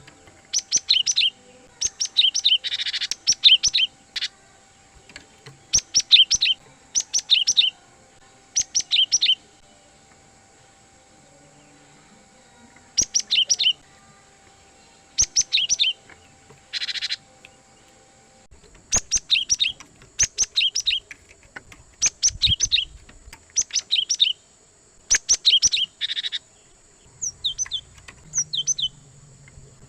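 Cinereous tit singing: quick strings of short, sharp, high notes in repeated phrases about a second long, separated by short pauses.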